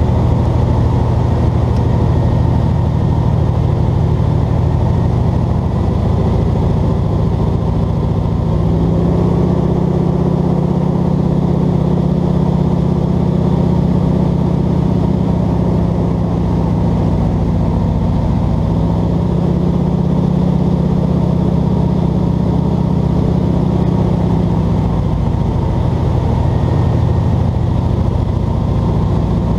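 Single-engine bush plane's piston engine and propeller drone, heard from inside the cockpit, shifting in pitch about nine seconds in and again near the end as the power is adjusted on the descent to land.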